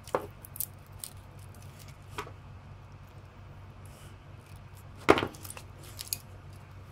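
Side cutters snipping the metal connecting strips between laptop battery cells, heard as a few sharp clicks with small handling noises between them. The loudest snip comes about five seconds in.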